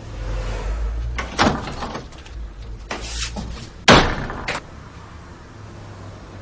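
Rustling and a few knocks, then a door slammed shut just before four seconds in, the loudest sound, with a smaller knock just after.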